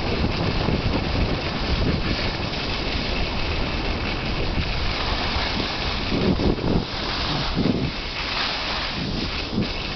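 Wind buffeting the camera microphone, a steady loud rushing noise with gusty swells.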